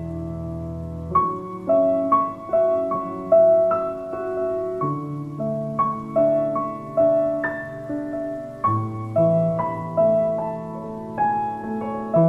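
Slow, gentle solo piano music: single notes struck about twice a second over low notes held for several seconds.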